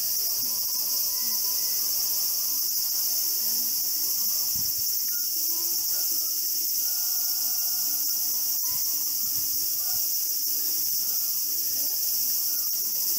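Steady high-pitched insect chorus, shrill and unbroken, with one brief click a little past halfway.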